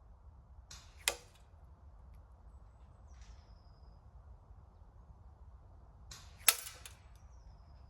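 Two shots from a Novritsch SSG96 spring-powered bolt-action airsoft sniper rifle, shooting 3.0 J with 0.46 g BBs: each a short sharp snap with a brief hiss around it, about five seconds apart.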